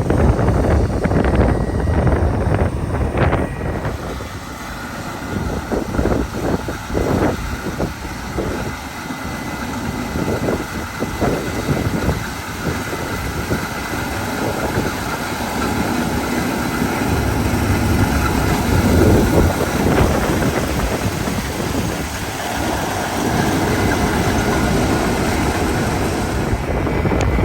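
Harvest machinery running steadily in a wheat field: engine drone with a constant high mechanical whine, and gusts of wind buffeting the microphone.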